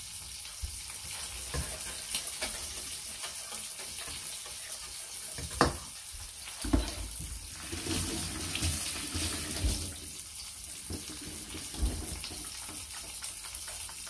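Steady sizzle of a frying pan on the hob, with a couple of sharp knocks of utensils or cookware about halfway through.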